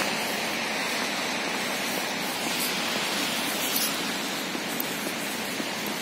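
Steady, even hiss of rain falling around the microphone.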